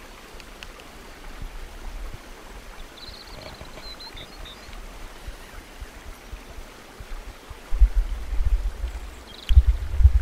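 Outdoor ambience picked up by a body-worn camera: a steady hiss with low rumbling buffets on the microphone from wind and movement, which become loud and uneven in the last few seconds. A faint high chirping is heard briefly a few seconds in.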